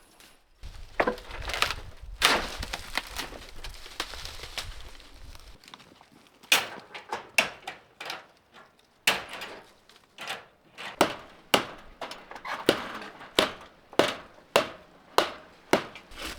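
Old wooden boards being struck and broken apart: a series of sharp wooden knocks and cracks. The knocks are scattered at first, then come in a steady run a little under two a second from about six seconds in.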